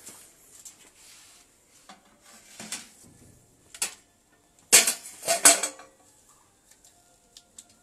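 Metal clatter from a small stainless-steel drum smoker's lid and metal tongs: a few light clinks, then a loud run of clanks about five seconds in as the lid is set down and the tongs work in the pot.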